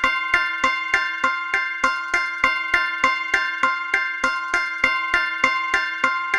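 Sleigh bells suspense sound effect: bells struck in an even beat of about three a second, each strike ringing, over a steady low held tone that runs underneath.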